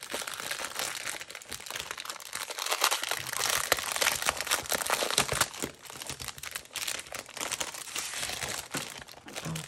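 Clear plastic packaging bag crinkling as hands grip, twist and pull at it to open it: a dense crackle full of sharp clicks, loudest in the middle.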